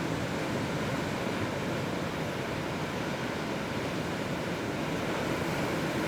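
Ocean surf: a steady, dense wash of breaking waves, with some wind on the microphone.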